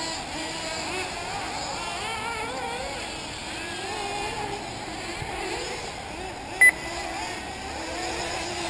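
Several 1/8-scale nitro RC buggies' small two-stroke glow engines whining, their pitch rising and falling as they rev and back off around the track. A short, loud beep sounds about two-thirds of the way in.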